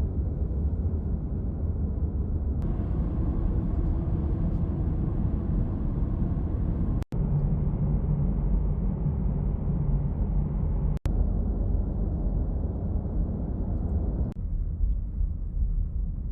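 A car driving at road speed: a steady low rumble of road and engine noise. There are two brief dropouts, about seven and eleven seconds in.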